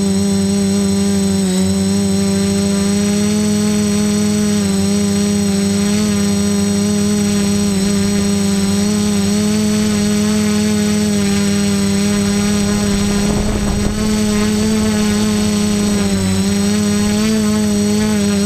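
Quadcopter's electric motors and propellers in flight, a steady loud drone with a high whine that wavers slightly in pitch, heard up close from the craft's own camera. About thirteen seconds in, a brief rush of noise passes over it.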